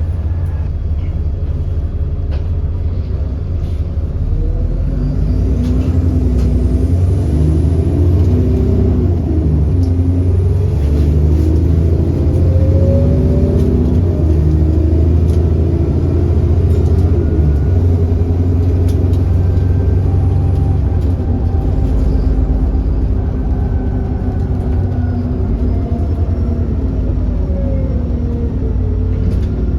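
Alexander Dennis Enviro400 bus's 6.7-litre Cummins ISB diesel engine running under way with a deep rumble, its note rising and falling in pitch several times as it pulls through the ZF Ecolife automatic's gears, then settling into a steadier low drone for the last third. The bus has an exhaust leak.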